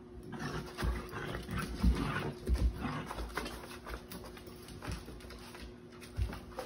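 A husky puppy and a sheprador puppy play-fighting on a fabric dog tent: the fabric rustles and scuffs, with scattered thumps of paws and bodies.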